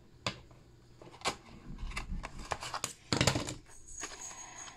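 Plastic cube packaging being cut with scissors and handled: scattered sharp clicks and taps, with a louder scraping rustle about three seconds in.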